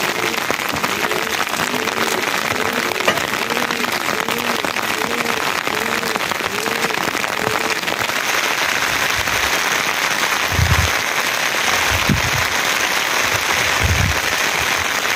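Steady rain falling, an even hiss throughout. For the first half a short rising-and-falling call repeats about twice a second over it, and a few deep thumps come near the end.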